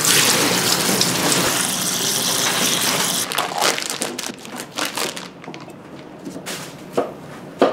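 Water pouring from a jug into a large aluminium stockpot of chopped green onions, a steady splashing stream for about three seconds. After it stops come quieter scattered handling noises and two sharp knocks near the end.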